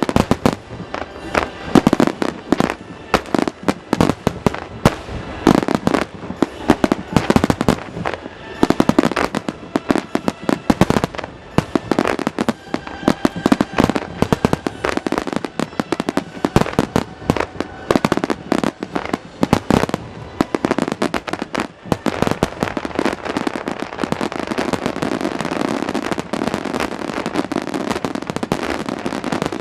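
Aerial fireworks finale: a rapid barrage of shell bursts going off in quick succession. About two-thirds of the way in it thickens into a denser, more continuous crackle.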